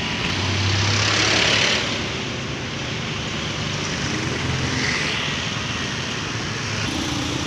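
Road traffic passing close by: motorcycles and cars going past, with one louder pass about a second in and a smaller one about five seconds in.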